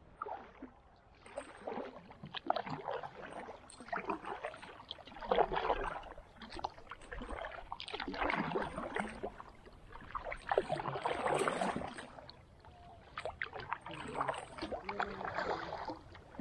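Kayak paddle strokes in the water: a splash and dripping off the blade that swells and fades about every two seconds, about seven strokes in all.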